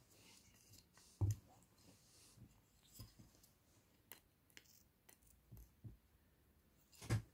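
Scattered light clicks and knocks as a kitten bites and bats a wooden wand toy, with two louder thumps, one about a second in and one near the end.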